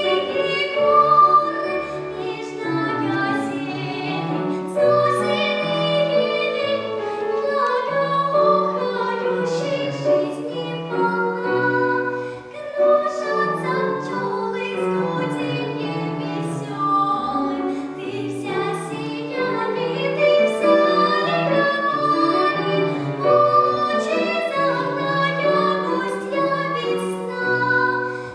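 A child of about 11–12 sings a classical piece in academic (operatic) style, with sustained notes and vibrato over an instrumental accompaniment.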